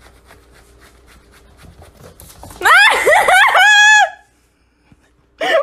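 Faint footsteps on a wooden floor, then a loud, high-pitched cry of several quick rising yelps ending in one held, falling note, as a kitten runs up and climbs a leg.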